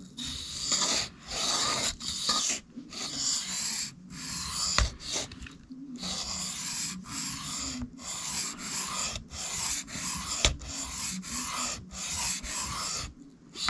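Knife blade (a Cold Steel 4 Max Scout) stroked back and forth across the 1200-grit side of a Sharpal 162N diamond sharpening stone, a steady rasping scrape about two strokes a second. The other side of the edge is being ground to raise and then remove the burr.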